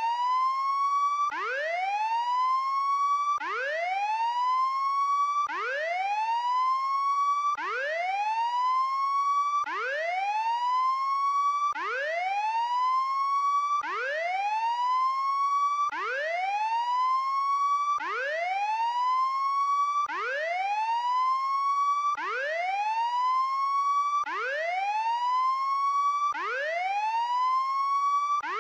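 Prison break alarm: a whooping tone that sweeps quickly upward and levels off, repeating about every two seconds. It is the alarm sounded when an inmate breaks out of jail.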